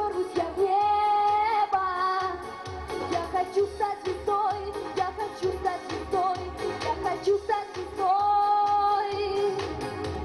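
A girl singing a pop song into a microphone over music with a steady beat, holding long notes about a second in and again near the end.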